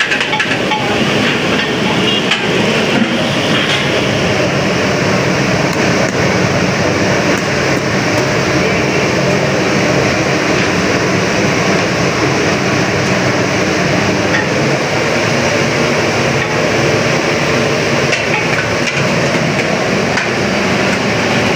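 Steady, loud street noise of traffic and running engines, with occasional knocks and clatter.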